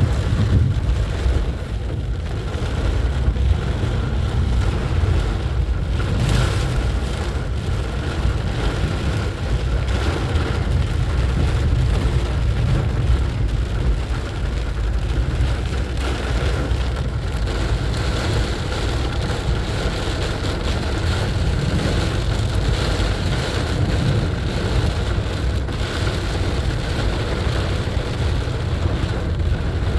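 Car driving in heavy rain through water on the road: a steady low rumble with an even hiss of rain and wet tyres. The hiss grows brighter a little past halfway.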